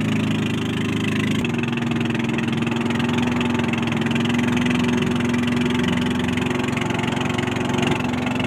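Small boat engine running steadily at a constant speed, a low even drone.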